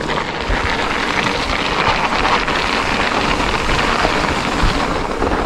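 Wind rush and tyre noise from an electric mountain bike riding a trail, picked up on an action camera's microphone, a steady rushing hiss with small rattles and knocks from the bike.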